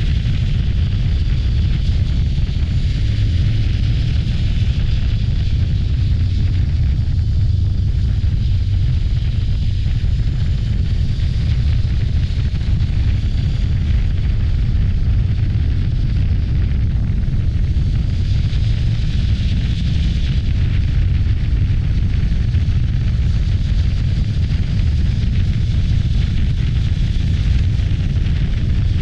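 Steady wind rush and low buffeting on the microphone of a moving Voge DS525X motorcycle, with its parallel-twin engine running underneath at road speed.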